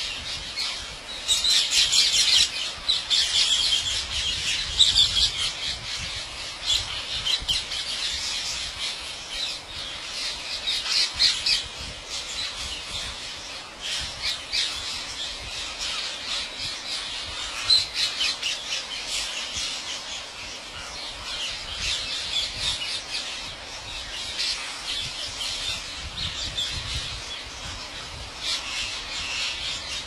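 A huge flock of rose-ringed parakeets screeching all at once: a dense din of overlapping shrill calls, loudest in the first few seconds.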